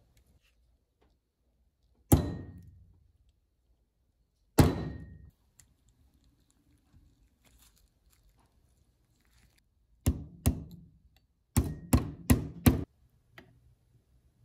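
Hard knocks with a brief metallic ring from the grinder's metal parts being worked during reassembly: two single knocks a couple of seconds apart, then, after a pause, two more and a quick run of four.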